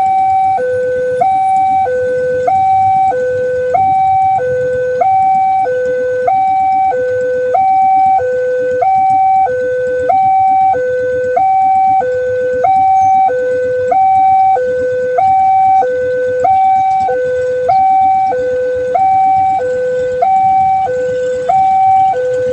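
Railway level-crossing warning siren sounding a steady two-tone hi-lo alarm, switching between a lower and a higher pitch about once a second, over a low background rumble.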